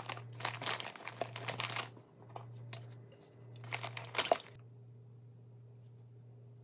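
Crinkling and rustling of an insulated lunch bag's foil lining as a lunch container and a note are pushed in and a water bottle is laid on top, with a sharp knock a little past four seconds. After that only a low steady hum remains.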